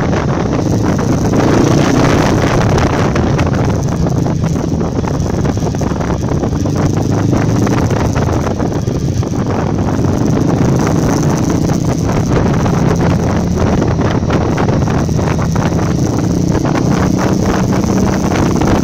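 Honda CRF250 Rally's single-cylinder four-stroke engine running under way, heard from a phone mounted on the bike, with wind buffeting the microphone throughout.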